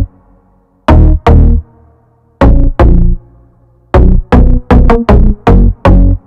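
Background electronic music built on loud drum-machine hits: two pairs of beats, then a quicker run of six hits near the end, over a low synth line.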